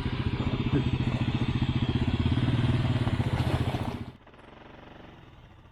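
An engine running with a fast, even firing beat. About four seconds in it drops suddenly to a much quieter, steady run, as if throttled back to idle.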